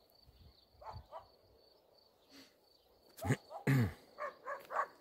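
Farm animal calls: a few faint short calls, then two louder short calls about three seconds in.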